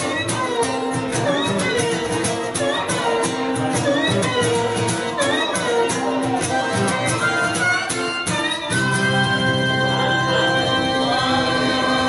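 Harmonica solo over strummed acoustic guitar. The harmonica plays short phrases with bent, sliding notes, then holds long steady notes from about nine seconds in.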